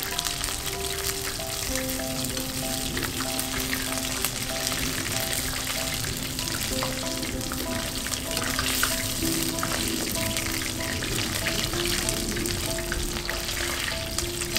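Coated tilapia pieces sizzling and crackling in hot oil in a frying pan, being turned with wooden chopsticks and a mesh skimmer: the second fry for crispness. Slow background music plays underneath.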